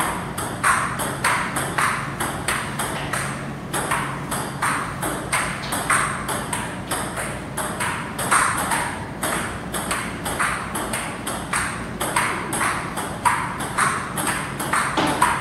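Table tennis ball clicking back and forth off the paddles and the table in a long, continuous rally, about two to three hits a second. A steady low hum sits underneath.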